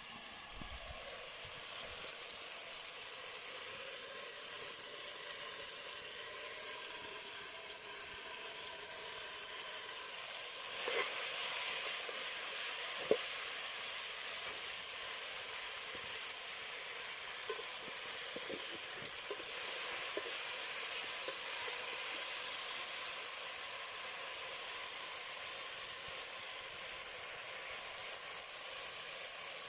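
Okra frying with onions in a hot pot, a steady sizzle that swells a little about two seconds and again about eleven seconds in, with a few faint clicks.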